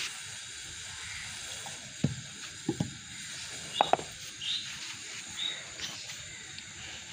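Steady outdoor hiss with a few light knocks and a clink about two to four seconds in, as a steel plate of food and a stack of chapatis are set down and adjusted on a clay pot on dirt ground. A few short high chirps follow shortly after.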